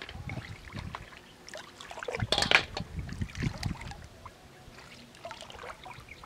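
Shallow river water splashing and sloshing as hands reach into it to pick up snails, loudest and busiest for a second or two in the middle, with a few light clicks.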